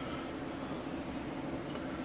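Steady background hiss with a low hum, with no distinct knocks or clicks.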